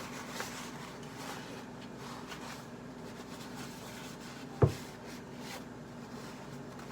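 Paper towel rubbing and scuffing over a small mouse-cage stump, with one sharp knock about two-thirds of the way through.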